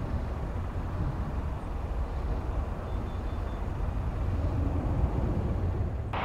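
Steady low outdoor rumble, strongest in the deep bass, with no distinct event standing out.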